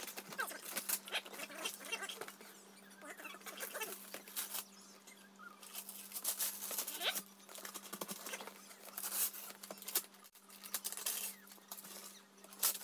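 Small hands scratching, peeling and tearing at a present's wrapping paper and tape: irregular rustles, scrapes and small crinkles, over a faint steady hum.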